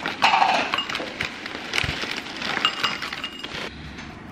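Granola poured from a cardboard box rattling and clinking into a ceramic bowl, a dense patter of small hard pieces that stops about three and a half seconds in.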